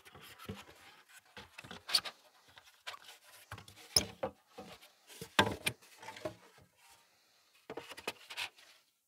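Poly (polystyrene) beehive box panels knocking and scraping against each other as their interlocking ends are pushed together by hand in a dry fit, without glue. A run of short knocks, the loudest about two, four and five and a half seconds in, with rubbing between them.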